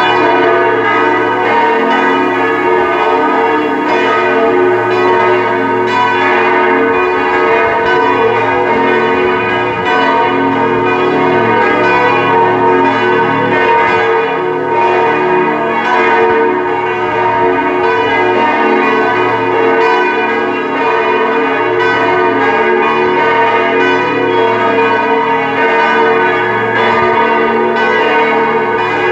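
Several large Grassmayr-cast church bells from a four-bell set tuned B♭, E♭, G♭ and A♭, swinging and ringing together in a continuous, overlapping peal with no pause.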